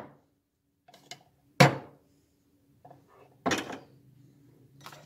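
A metal spoon clinking and scraping in a plastic food-processor bowl as an ingredient is spooned in: a sharp clink about one and a half seconds in, a longer clattering scrape about three and a half seconds in, and another clink at the very end.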